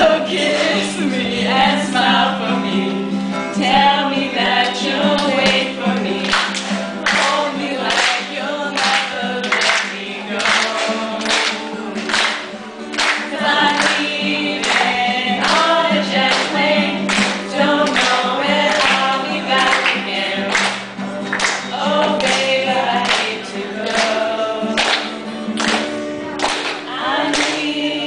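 A small mixed group of men's and women's voices singing a song together in unison, with a steady beat of about two strokes a second under the voices.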